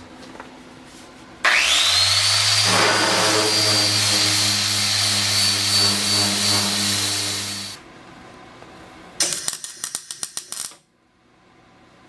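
Electric angle grinder spinning up to a steady high whine, then bearing into metal for about five seconds before it stops. A quick run of clicks follows near the end.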